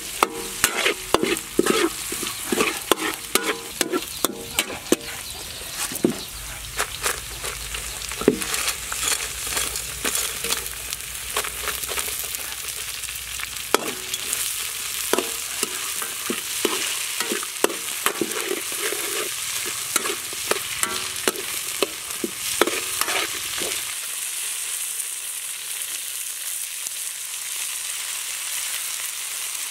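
Metal spatula scraping and knocking against a steel wok as food is stir-fried over a steady sizzle. The spatula strokes come thick and fast in the first half, then thin out, leaving mostly the sizzling near the end.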